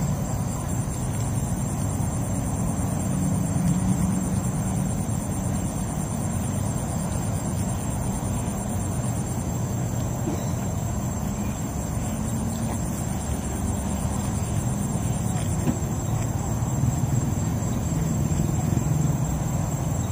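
Insects trilling steadily in a continuous high-pitched chorus, over a steady low rumble.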